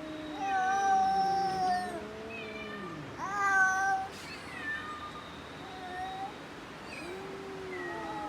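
Domestic cat meowing in a string of about six drawn-out calls that bend in pitch, some long and some short. The loudest comes about three and a half seconds in, and a long falling call begins near the end.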